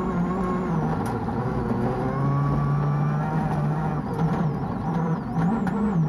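Peugeot 206 WRC rally car's turbocharged four-cylinder engine heard from inside the cabin at speed, with constant tyre and gravel noise underneath. The engine note holds steady through the middle, then rises and falls with throttle and gear changes in the last two seconds.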